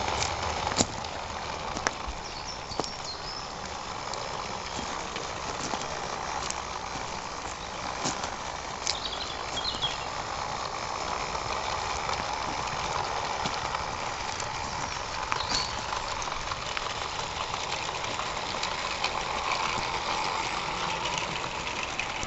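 Radio-controlled Swift Sixteen Tin Turtle model locomotive running steadily with a train of wagons in tow, a continuous running sound with scattered sharp clicks from the wheels on the track.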